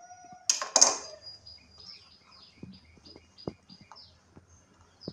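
Knife cutting through a peeled bottle gourd on a wooden chopping board: two sharp chops about half a second in, then a few lighter knocks on the board. Birds chirp in the background.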